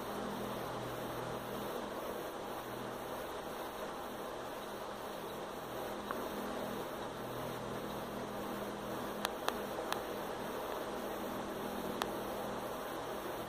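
Steady room background noise: a low hum under an even hiss, with a few short sharp clicks in the second half.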